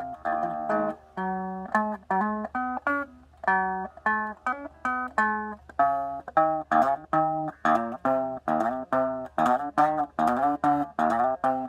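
Electric guitar played as a busy line of single picked notes, the notes coming faster from about halfway through.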